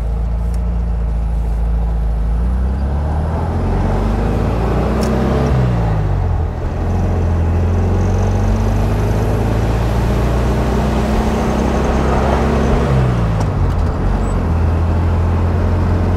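1969 VW Beetle's air-cooled flat-four engine pulling the car away, heard from inside the open convertible with road and wind noise. The engine pitch climbs as the car accelerates and falls back sharply at gear changes, about six and thirteen seconds in. The engine is freshly fitted with a new muffler and distributor and is running smoothly.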